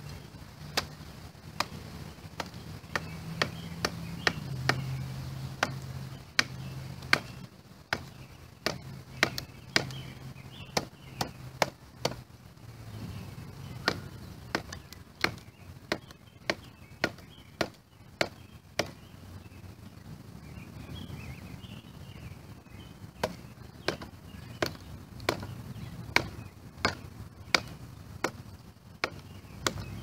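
Wooden baton knocking down on the spine of a Spyderco Endura 4 folding knife driven into a log, batoning to split it. Dozens of sharp knocks come in runs of about two a second, with a pause of a few seconds past the middle. A low steady hum sits under the first half.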